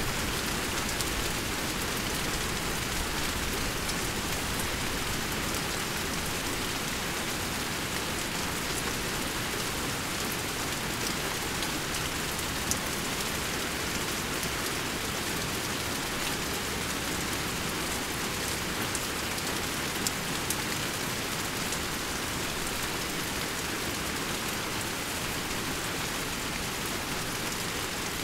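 Steady rainfall with scattered drops ticking on surfaces, even and unbroken.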